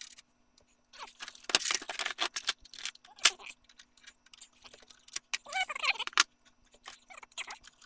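Rapid clatter of knocks, clicks and rattles as the case cover of a DEC 3000 Model 500 workstation is tugged and worked by hand to slide it off. The audio is fast-forwarded, so the handling noises crowd together, with a few short high-pitched fragments of voice.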